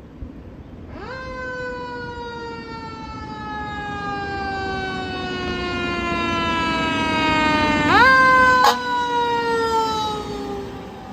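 Fire truck's mechanical siren winding up quickly about a second in, then slowly winding down. It spins up again about eight seconds in and coasts down once more, loudest right after that second wind-up, with a short sharp crack just after it.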